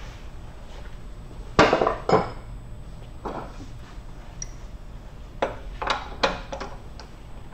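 Heavy metal clanks and clinks as a wood lathe's tool rest is swapped out: a loud clank with a short ring about one and a half seconds in, another just after, then a few lighter knocks near the end.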